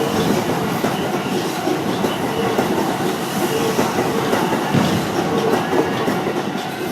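Keio Line train passing over a level crossing, its wheels clattering steadily over the rails.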